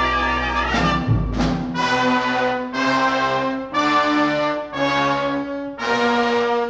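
Orchestral background music: a brass section playing a series of sustained chords, a new chord about once a second, over a low rumble in the first second.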